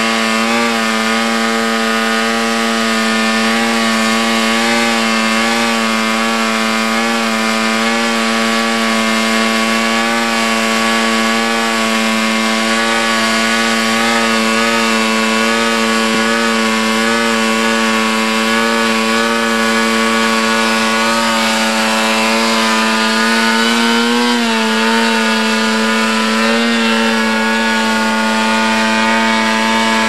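V-Bat 3.0 RC tail-sitter VTOL model hovering overhead, its motor and propeller running with a steady, slightly wavering buzz, with a brief rise in pitch about 24 seconds in.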